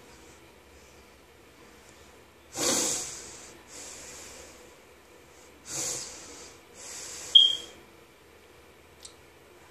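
Breathing close to the microphone: two heavy breaths about three seconds apart, each a loud huff followed by a softer hiss. A short high-pitched squeak comes near the end of the second breath.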